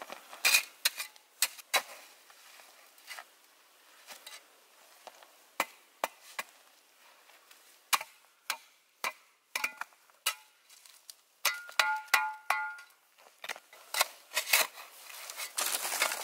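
A small metal shovel scraping and chopping snow off frozen ground, an irregular run of sharp scrapes and crunches, with a brief ringing tone about twelve seconds in.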